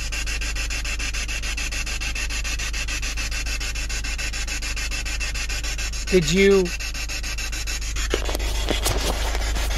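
Steady rushing hiss and low rumble of wind buffeting the camera microphone at an open vehicle window. About six seconds in, one short voice-like call is heard, and near the end the camera is handled with a few knocks and rustles as it swings inside the cab.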